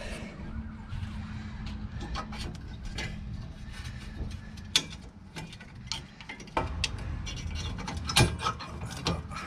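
Irregular metallic clicks and scrapes as a screwdriver works the hold-down clips and springs on the steel backplate of a van's rear drum brake, the loudest a little before halfway, about two-thirds in and near the end. A steady low hum runs underneath.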